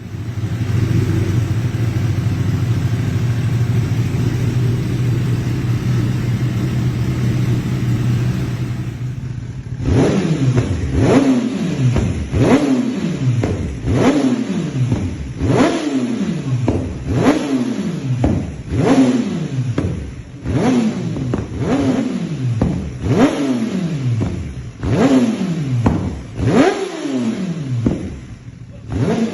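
Kawasaki Ninja ZX-10R's inline-four engine through an Akrapovič exhaust, idling steadily, then from about ten seconds in revved in quick throttle blips about every second and a half, each one shooting up in pitch and falling back to idle.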